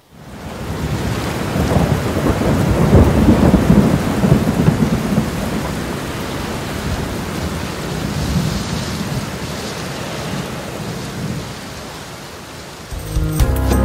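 Rain with a low rumble of thunder, fading in over the first second or two, loudest a few seconds in, then slowly easing off.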